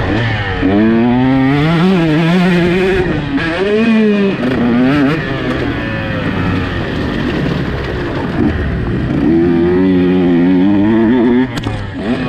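Two-stroke KTM 150 SX motocross bike engine at full race load, its pitch climbing and dropping again and again as the throttle is opened and closed.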